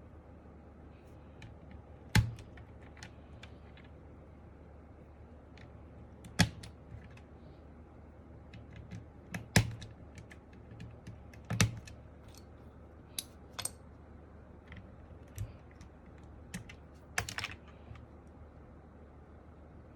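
Keys of an MK870 mechanical keyboard struck one at a time, a sharp clack every second or two with a few quick presses together near the end.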